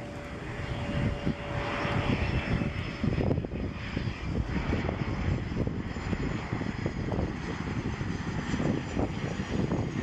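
Bombardier CRJ regional jet landing, its twin rear-mounted jet engines running at low approach power as it passes close by and touches down. The engine noise is a heavy, rough low rumble, with a steady whine that fades out about three seconds in.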